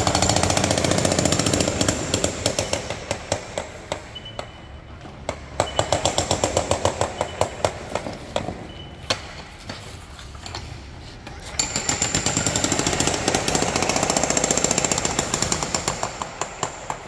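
Makita HM004G cordless demolition hammer running in bursts of rapid percussive blows. It is loudest at the start and again through the second half, with separate blows near the end as it stops.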